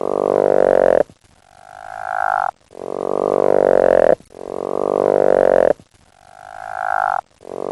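An animal calling over and over, swapping long low calls for shorter higher-pitched ones, each call about a second long and swelling as it goes.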